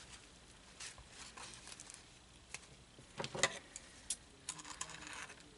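Faint rustling and small scattered clicks of ribbon being handled and wrapped around the center of a hair bow, with a short cluster of louder crinkles about three and a half seconds in.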